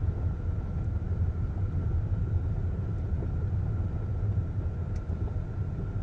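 Steady low rumble of a vehicle engine running at low speed, with a faint steady high tone above it.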